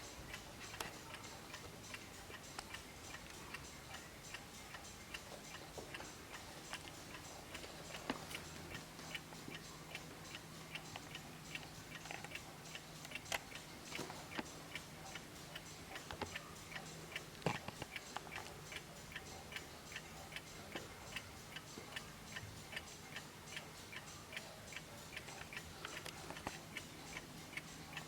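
Vintage 1950s Junghans Max Bill ceramic kitchen wall clock, its 8-day mechanical movement ticking steadily, with two louder knocks near the middle.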